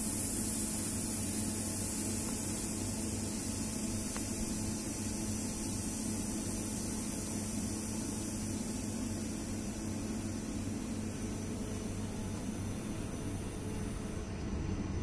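VB2N double-deck commuter train, drawn by a BB 7600 electric locomotive, starting slowly away from the platform: a steady low hum with a constant hiss, and no clear wheel or rail beats.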